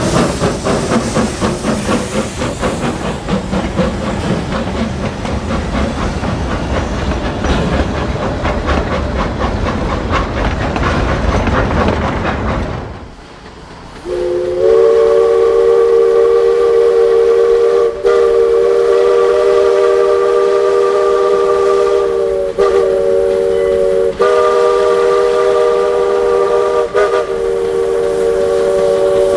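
Wood-burning 4-4-0 steam locomotives (the Eureka & Palisade leading) working hard, with rapid exhaust beats over steam hiss, fading out about 13 seconds in. About a second later a steam chime whistle sounds a long multi-note blast, rising from its lowest note into the full chord and broken by brief gaps four times.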